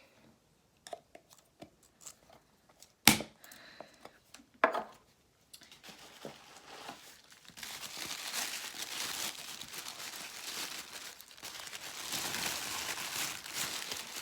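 A few light clicks and two sharp knocks, then continuous crinkling and rustling of packaging being rummaged through, louder from about halfway in.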